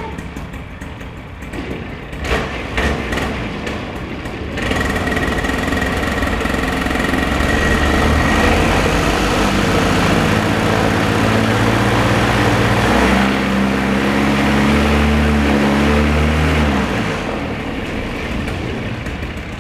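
Freshly rebuilt two-stroke paramotor engine and propeller running on its first ground test: idling at first, throttled up about four and a half seconds in and held at high revs for about twelve seconds, then dropping back toward idle near the end.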